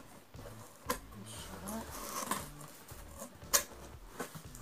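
Cardboard box and packaging being handled while the box is opened: rustling and scraping, with a sharp knock about a second in and a louder one about three and a half seconds in.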